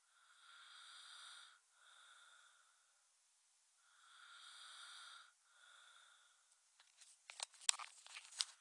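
Sleeper snoring softly: two slow breaths, each a longer noisy draw followed by a shorter one. About seven seconds in comes a quick burst of sharp crackling clicks, louder than the snoring.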